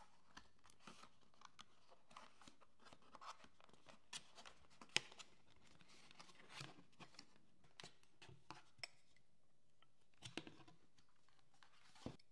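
Hands handling a cardboard gift box and its paper insert: scattered soft rustles, scrapes and light taps, with one sharper tap about five seconds in and a few more near the end as the metal candle snuffer is lifted out.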